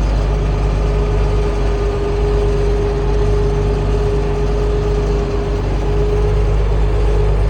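International Harvester 1566's turbocharged six-cylinder diesel running steadily under load while pulling a field cultivator, a deep drone with a steady whine above it.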